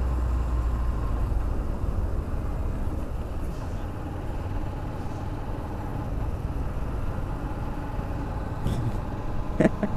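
Road traffic: motor vehicles running, a steady low rumble with a faint engine hum, and a short rising sound near the end.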